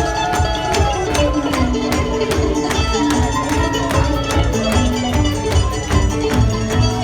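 Live bluegrass string-band jam at a fast, even pulse, with a run of quick plucked notes, as in a mandolin break, over the band's backing.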